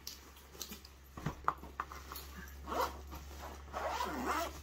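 Zipper of a nylon handgun case being pulled open in a couple of strokes, its pull giving a sweeping pitch, after a few light clicks of handling.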